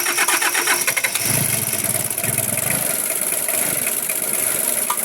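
Diesel engine, which has been hard to start, cranking on the starter with a rapid even rhythm, then catching about a second in and running.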